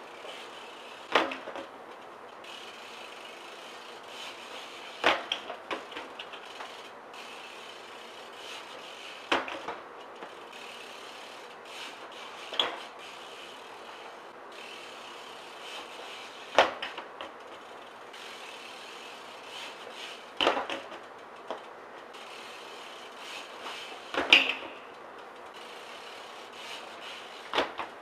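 BMX bike coming down hard on concrete from tailwhip attempts: a sharp clattering impact about every four seconds, eight in all, each followed by a few lighter rattles.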